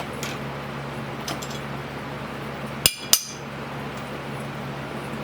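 Steel milling tooling being handled while the dovetail cutter is taken out of the mill: a few light clicks, then two sharp metal-on-metal clinks with a brief ring about three seconds in. A steady low hum runs underneath.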